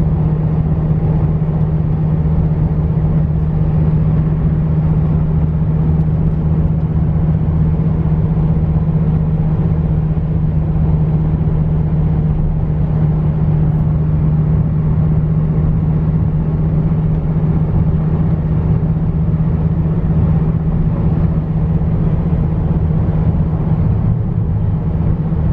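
2014 Dodge Viper GTS cruising at a steady speed, its V10 engine and the road noise making an even, unchanging drone with a strong low hum.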